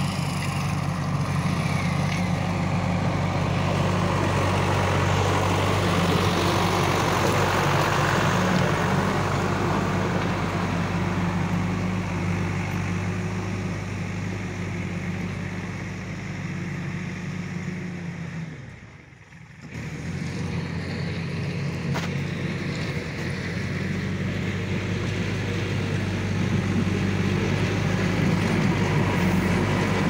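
JCB 3DX backhoe loader's Kirloskar diesel engine running steadily at a low, even pitch, with a brief sudden drop in sound about two-thirds of the way through.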